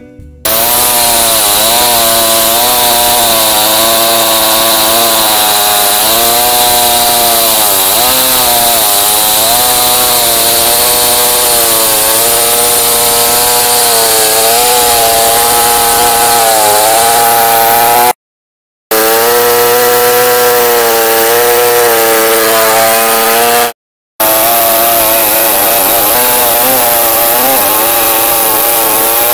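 Two-stroke chainsaw running at full throttle in a chainsaw mill, ripping a slab lengthwise through a large log; the engine pitch wavers slightly as the cut loads it. The sound cuts out briefly twice.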